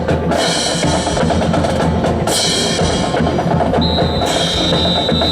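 Percussion-heavy music with drums and a steady bass line. A high held tone comes in a little under four seconds in.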